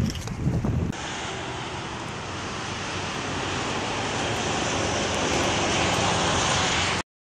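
Wind buffeting the microphone for about a second, then a steady rushing outdoor noise that slowly swells and cuts off abruptly near the end.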